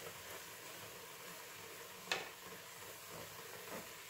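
Mushroom, onion and flour sauce sizzling in a pan while it is stirred with a wooden spoon, the mushroom soaking water cooking off the browned fond. One sharp knock of the spoon against the pan about two seconds in.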